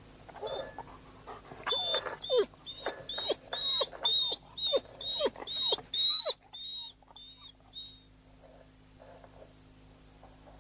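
A dog whimpering and whining in a quick series of short, high, pleading cries, strongest in the middle and tapering off about eight seconds in.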